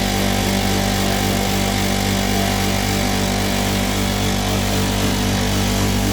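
Industrial continuous nut roasting machine running under test: a loud, steady machine hum made of several constant tones over an even noise, with no change.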